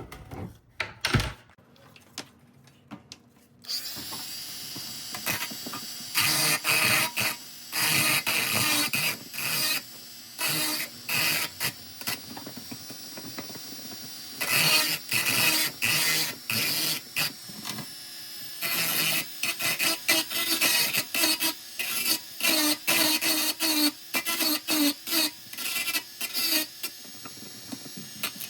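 A few clicks, then a power tool working abrasively on pressed-steel toy parts: a steady running sound with many short, harsh bursts of grinding and scraping where the tool bites the metal.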